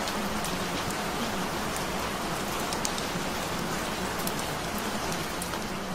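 Steady rain falling, with scattered single drops ticking through the hiss.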